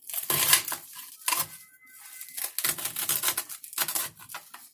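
Chef's knife chopping Swiss chard on a cutting board: a run of quick, uneven knocks, about three a second.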